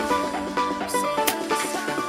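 Background pop music: a song with a melody line and drums.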